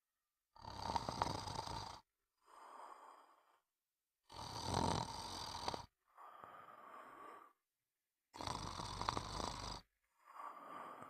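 Steady snoring: three loud snores about four seconds apart, each followed by a quieter, breathy breath.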